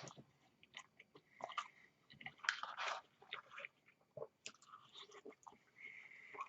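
Faint, irregular chewing of a mouthful of fried chicken tender and mac and cheese, with small wet clicks and light crunches.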